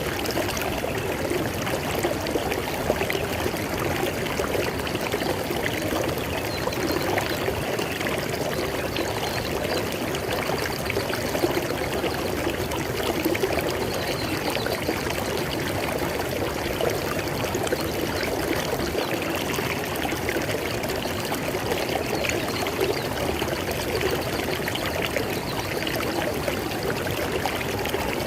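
River water flowing steadily over rocks, a continuous rushing and splashing with no pauses.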